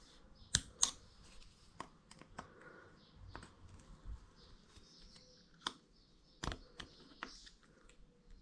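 Small screwdriver tip clicking and scraping against a Brembo 16x18 brake master cylinder while prying out its rubber cover seal: a scatter of sharp light clicks, the two loudest close together near the start.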